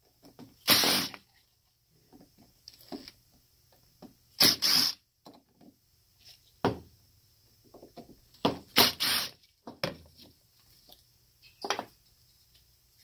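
Cordless impact driver running in short bursts of about half a second, three or four times, backing out the Phillips screws of a Mikuni carburetor's fuel pump cover, with light clicks of parts being handled between bursts.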